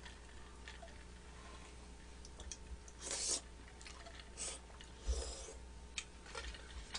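Quiet eating sounds: a short slurp of glass noodles and beef from a bulgogi hot pot about three seconds in, followed by chewing and a few small clicks.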